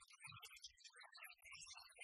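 Near silence: faint, scattered low-level noise with no distinct sound.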